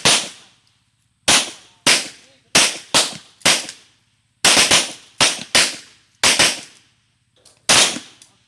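Pistol shots from several shooters firing at will: about a dozen sharp reports at irregular spacing, some nearly overlapping, each trailing off in a short echo.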